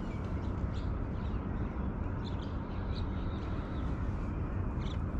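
Steady low rumble of background noise, with a few faint, short bird calls scattered through it.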